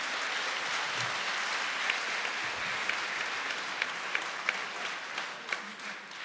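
Audience applauding: a steady patter of many hands with a few louder single claps standing out, beginning to die away near the end.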